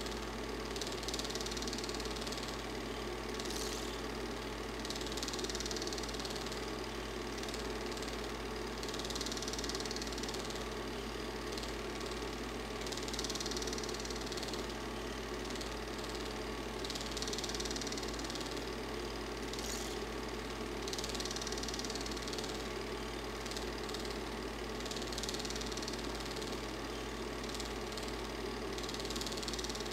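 Super 8 film projector running: a steady mechanical whir and hum, with a hiss that swells briefly about every four seconds.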